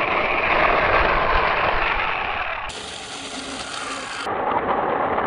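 Six-wheeled radio-controlled toy truck driving on rough asphalt: its electric motor and gearbox whirring along with tyre noise. The sound changes abruptly twice.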